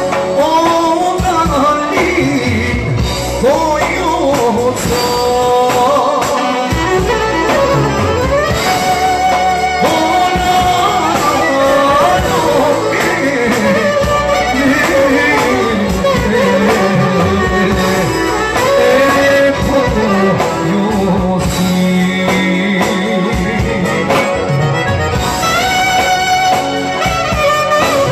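Clarinet playing a live, heavily ornamented melody full of slides and bends in pitch, in Albanian folk wedding style, over band accompaniment.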